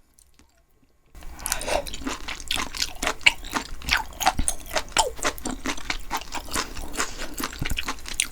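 Close-miked chewing of spicy beef-intestine tteokbokki (rice cakes and gopchang): a dense run of wet, sticky smacks and small clicks. It starts about a second in, after a near-silent gap.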